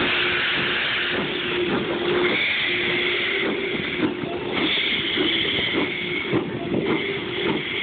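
Arcade & Attica Railroad steam locomotive moving slowly, hissing steadily as steam blows from its open cylinder cocks. From about four seconds in there are repeated knocks and clanks from the running gear and wheels.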